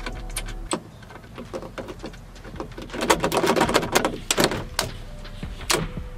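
Plastic headliner trim clip in a Honda Civic being pried loose by hand: a run of sharp plastic clicks and rattles, densest about three to four and a half seconds in.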